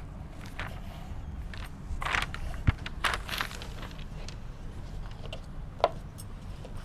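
Paper rustling against a whiteboard as sheets are handled, with a few sharp taps, the loudest a little under three seconds in and another near the end, over a steady low hum.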